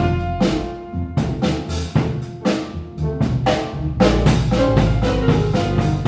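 Jazz piano trio playing: piano, bass and drum kit, with drum strikes and cymbals over piano chords and a low bass line.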